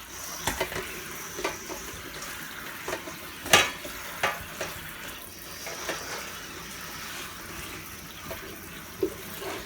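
Kitchen tap running water over jalapeño peppers being rinsed in the sink, with scattered knocks and clunks, the loudest about three and a half seconds in.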